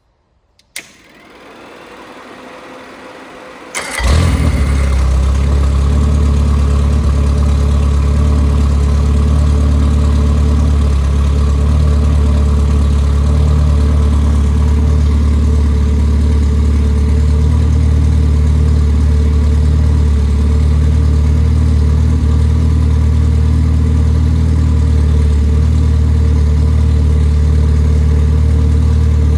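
Rebuilt Triumph Spitfire 1500 four-cylinder engine being started: a few seconds of quieter cranking, then it catches about four seconds in and runs steadily and smoothly at idle, with a strong low hum.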